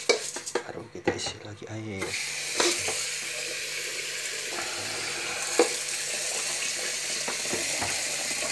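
Kitchen tap water running steadily into a rice-cooker pot of rinsed rice, filling it with water. It starts about two seconds in, after a few knocks and clatter as the pot is handled against the sink, and there are a couple more single knocks while it runs.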